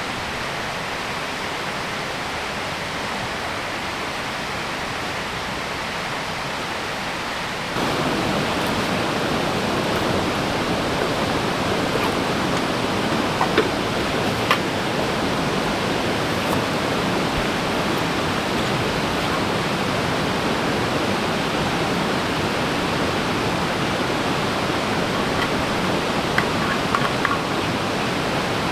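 Stream water rushing steadily, becoming louder and fuller about eight seconds in, with a few small clicks over it.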